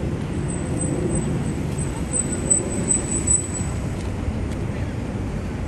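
City street ambience: a steady low rumble of road traffic, with a faint high-pitched whine that grows brighter in the middle.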